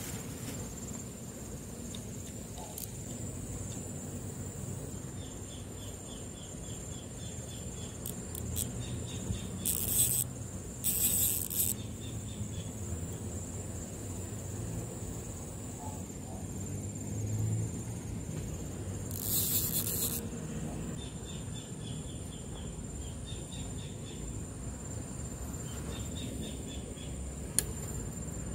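Insects buzzing steadily at a high pitch, with repeated short trains of chirping pulses, over a low background rumble. Short bursts of hissing rustle come twice about a third of the way in and once about two thirds in, and a single sharp click near the end.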